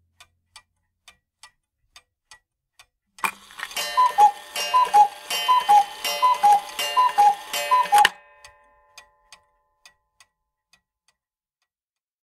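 A clock ticking about twice a second. About three seconds in, a loud ringing begins, alternating two tones, and it cuts off suddenly after about five seconds. A few fainter ticks follow and die away.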